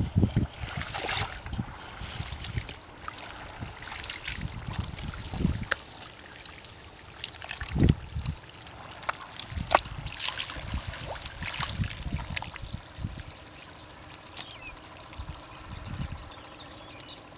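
Wet mud squelching and muddy water trickling and splashing as a hand digs into a crab burrow and feet wade through shallow mud, with scattered clicks and a few dull thumps.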